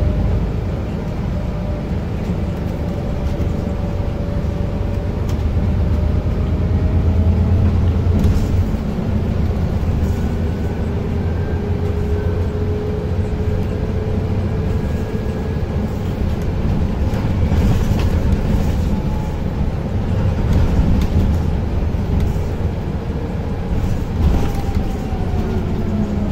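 Inside a Scania Citywide low-floor city bus on the move: a steady low engine drone with road rumble, and a faint whine that slowly rises and falls in pitch. There is a brief knock near the end.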